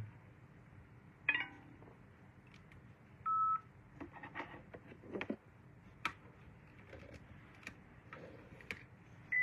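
Two short electronic beeps, each a single steady tone: a lower one about three seconds in and a higher one at the very end. Scattered faint clicks and taps sound over a low room hiss in between.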